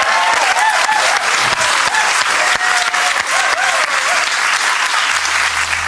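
Studio audience and contestants applauding steadily, with a few voices cheering in the first few seconds. A low music bed comes in near the end.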